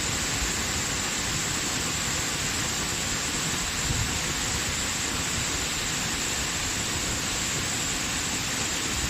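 Waterfall: a steady rush of falling water, with a slight surge about four seconds in.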